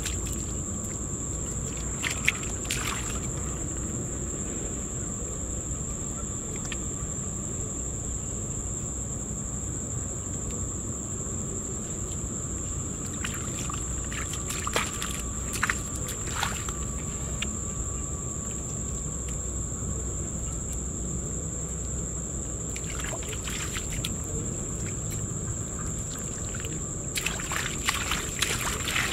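Wet mud being scooped, slapped and smoothed by hand, a few short squelching pats scattered through and a quick run of them near the end, over a steady high-pitched drone and low outdoor rumble.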